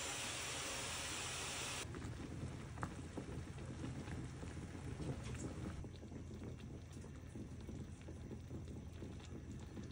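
Broth boiling in a shallow hot-pot pan of vegetables and sliced beef, a grainy bubbling with small pops. For about the first two seconds there is a steady hiss instead.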